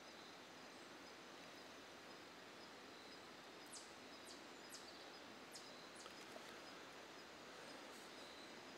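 Near silence: faint outdoor woodland ambience, with a bird giving about five quick, high, downward-sliding chirps between about four and six seconds in.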